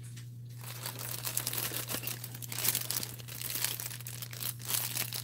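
A clear plastic bag crinkling and crackling in irregular bursts as hands handle the plastic model-kit part sealed inside it. It starts about half a second in.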